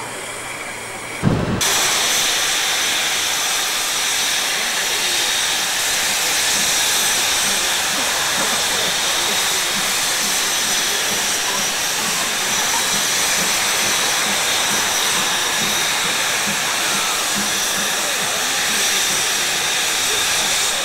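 BR Standard Class 4 2-6-4T steam locomotive blowing off steam: a loud, steady hiss that starts abruptly about a second in with a short thump, then holds unchanged.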